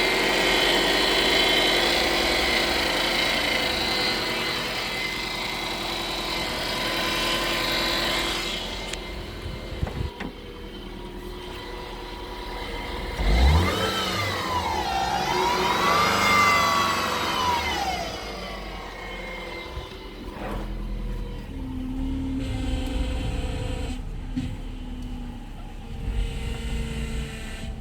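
2007 Subaru Impreza power steering pump humming and whining with the engine running, the fault the owner is recording. The whine is loud for the first several seconds and then drops away. About halfway through it swoops up and down in pitch, then settles to a lower, fainter hum.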